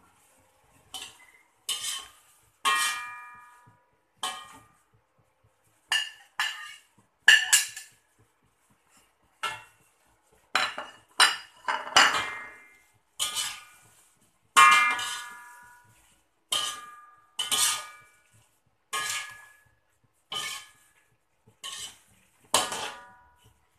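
Metal slotted spatula striking and scraping a wok during stir-frying: irregular clanks, about twenty in all, many with a brief metallic ring after them.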